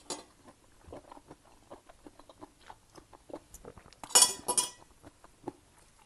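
Close-up chewing of a spicy Thai seafood glass-noodle salad: a run of small, soft mouth clicks. About four seconds in, a brief loud clatter of a metal fork against the plate.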